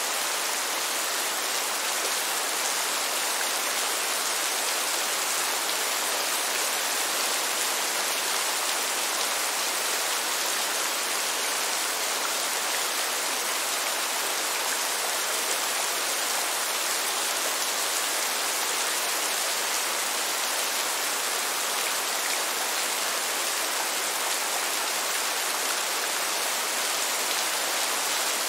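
Rain falling steadily: an even, unbroken hiss, mostly high with little low rumble.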